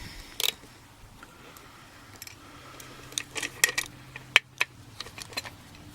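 Small metallic clicks and light rattling from handling a just-picked stainless steel padlock and its lock picks, scattered irregular ticks, a few early and a denser run from about three seconds in.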